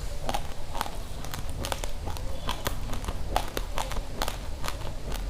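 Raw rice grains being crunched between the teeth in close-up chewing, a quick irregular series of sharp crunches, about three or four a second, over a low steady hum.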